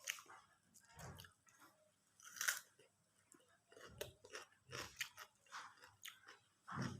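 A person chewing and biting crunchy food, mukbang-style, with irregular crunches, the loudest about two and a half seconds in.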